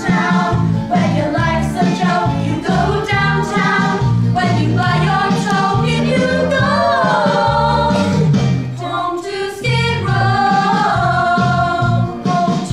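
A group of voices singing a stage-musical number over instrumental backing, with a bass line stepping steadily underneath.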